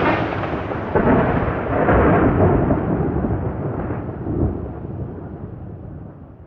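Rolling thunder rumble that swells twice early on and then slowly dies away.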